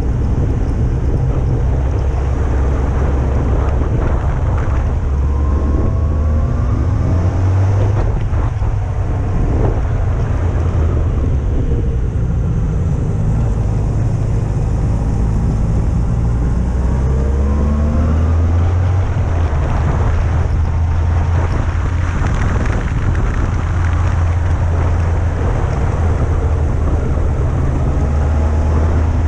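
Yamaha FJR1300A motorcycle's inline-four engine running at road speed, with steady wind noise on the microphone. The engine pitch rises and falls a few times.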